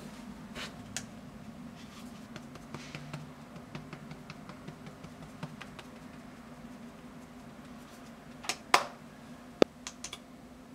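Soft taps and rustles of makeup being handled, then a few sharp clicks in the last two seconds as a cushion compact and a lip tint bottle are handled, over a steady low room hum.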